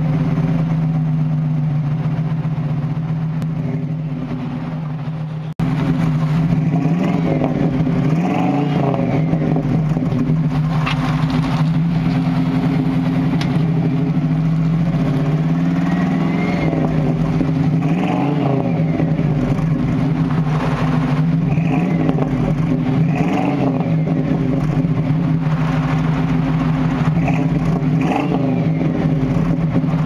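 1995 Chevrolet Caprice Police Interceptor V8 running at idle through its exhaust, with repeated short throttle blips that rise and fall in pitch every few seconds after a brief cut about five seconds in.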